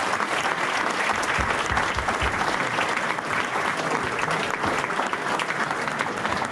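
Sustained applause from a large audience of adults and children: steady, dense clapping.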